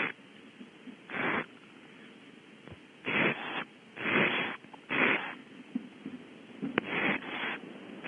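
Barn owl owlets giving raspy, hissing begging calls in short separate bursts, about seven of them each under a second long, while being fed in the nest cavity. There is one sharp click near the end.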